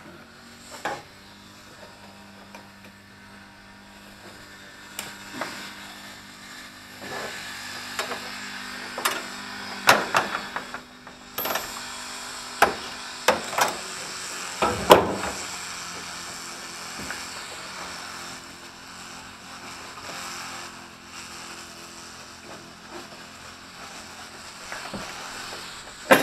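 Scattered clicks and knocks of parts and tools being handled at a van's open engine bay, with a cluster of sharper knocks between about ten and fifteen seconds in and one more near the end, over a steady low hum.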